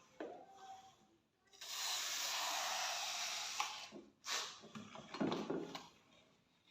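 Workshop handling sounds: a steady hiss lasting about two seconds, followed by clicks and scraping as parts are rubbed and handled.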